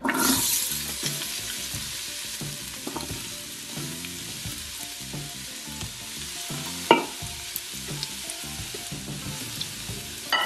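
Chopped onion hitting hot olive oil in an Instant Pot's stainless steel inner pot on the sauté setting: a sudden loud sizzle as it lands, settling into a steady sizzle. A single sharp tap about seven seconds in.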